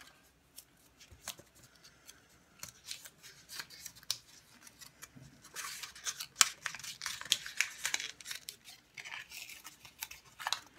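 Folded paper slips rustling and crinkling as a hand rummages through them inside a baseball cap, in several spells of short, quick crackles.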